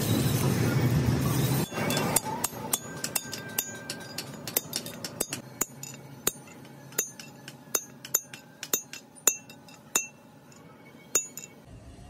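A steel punch held in the bore of a truck's rear wheel hub is struck again and again with a hammer: a run of sharp, ringing metal-on-metal taps, two or three a second, starting about two seconds in and stopping near the end. A steady rushing noise fills the first second and a half.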